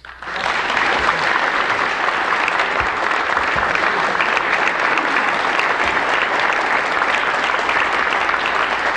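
Audience applauding: dense, steady clapping from a roomful of people that swells up within a moment and holds.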